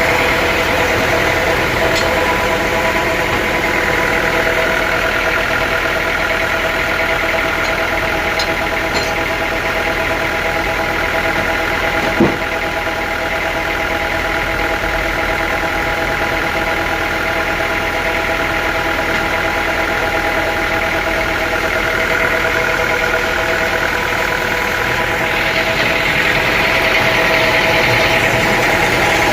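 Sawmill machinery running steadily with a steady hum, one sharp knock about twelve seconds in, and the sound growing a little brighter near the end.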